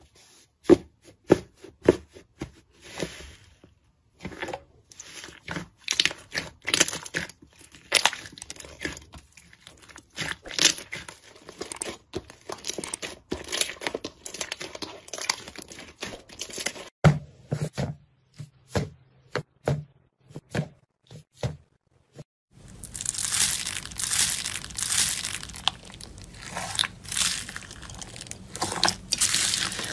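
Hands squeezing, pressing and stretching slime, making many small irregular crackles, pops and tearing sounds. About 22 seconds in it changes to a louder, denser crunching as slime mixed with small foam beads is kneaded.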